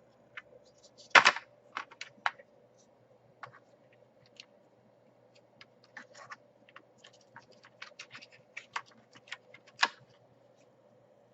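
Irregular clicks and taps of laptop parts being handled and fitted back together during reassembly, with a louder knock about a second in and another near the end.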